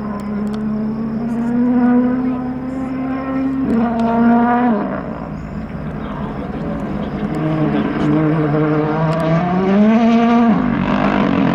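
Rally car engine revving hard, its pitch climbing and then dropping sharply several times as it shifts and lifts off. A rushing noise swells near the end.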